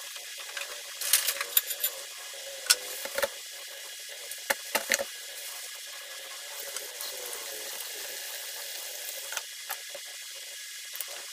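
A thin plastic bag rustling and crinkling in bursts as fish is pulled out of it in a plastic basin, with a few knocks about three and five seconds in, over a steady hiss.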